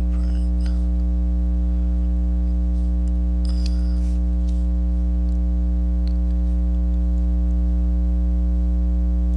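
Low, steady electrical mains hum with a stack of evenly spaced overtones above it, unbroken throughout. A few faint ticks come near the middle.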